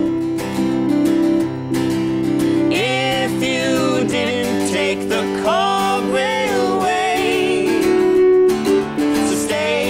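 A country-style song played live on a strummed acoustic guitar and an electric keyboard, with sung phrases over the chords in places.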